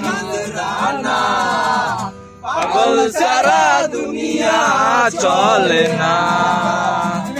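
A man singing a Bengali song over music, his held notes wavering, with a short pause a little over two seconds in.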